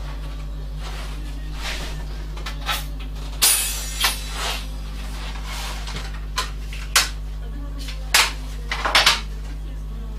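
Small clicks and knocks of tools and small parts being handled on a wooden workbench, with a short scraping hiss about three and a half seconds in and a quick cluster of knocks near the end, over a steady low hum.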